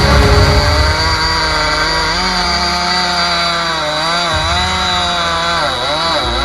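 Chainsaw cutting into pine wood. The engine's pitch sags and recovers several times as the bar bites, mostly in the second half.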